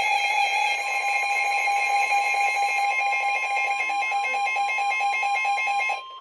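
Emergency Alert System attention signal: a steady, harsh two-tone electronic alarm announcing a tornado warning. It cuts off sharply near the end.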